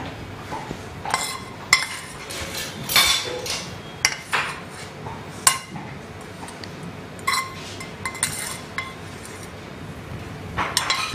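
Utensils clinking and tapping against plates and serving dishes as a dish is plated and garnished: about eight separate short clinks with a brief ring, spread unevenly.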